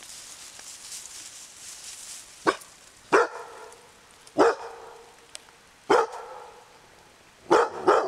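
A hunting dog barking: single barks a second or so apart, then two in quick succession near the end.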